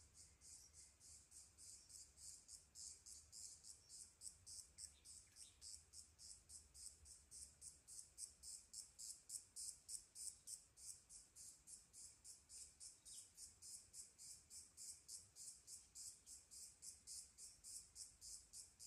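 Faint, high-pitched insect chirping in a steady, even pulse of about four chirps a second, swelling a little toward the middle and easing again.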